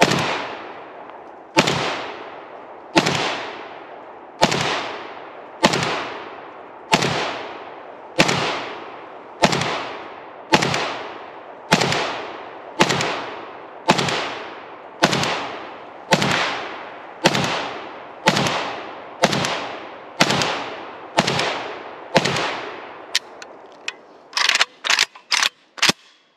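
An Izhevsk-kit AKM rifle in 7.62x39 firing a magazine of mixed ammunition: about twenty single shots at a steady pace of roughly one a second, each followed by a long echoing tail. Near the end comes a quick cluster of short, sharp cracks.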